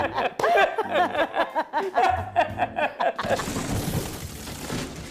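A group of people laughing heartily for about three seconds. A rushing noise follows, lasting nearly two seconds.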